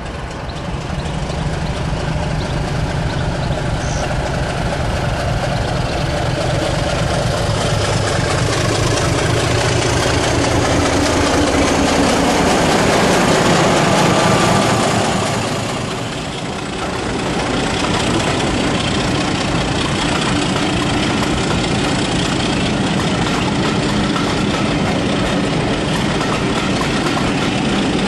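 A mainline diesel locomotive hauling coaches, its engine running as it approaches and grows louder, loudest as it passes about halfway through. After a short dip, the diesel engine runs steadily on with the train.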